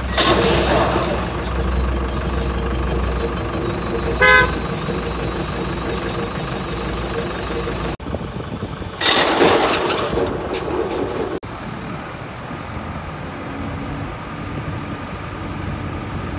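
Tractor engine running with its PTO-driven SC460 flail mulcher turning: a steady machine drone over a low hum. About four seconds in there is a short horn-like toot. About nine seconds in a loud rushing surge lasts about a second, and from about eleven seconds the running sound is quieter.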